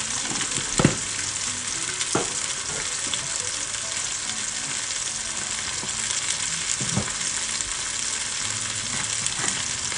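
Taro root pieces frying in oil with spices in a metal saucepan: a steady sizzle, broken by a few sharp clicks about a second in, two seconds in and near seven seconds.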